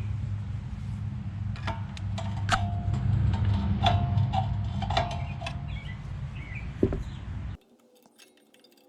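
Rear brake pads being pried off a 2018 Mazda3's caliper bracket: a series of sharp metallic clinks with short ringing, over a steady low hum. The sound cuts out suddenly near the end.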